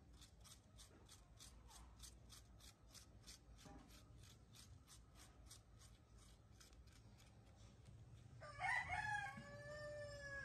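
A small metal spoon scraping the flesh of a halved apple in quick, even strokes, about three to four a second. Near the end a rooster crows, one long call that is the loudest sound.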